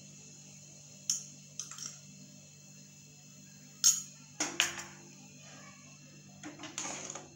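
A metal spoon tapping and clinking against a metal kadai while pepper powder is added to the soup and stirred in: a handful of short sharp taps, the loudest about four seconds in, over a faint steady hum.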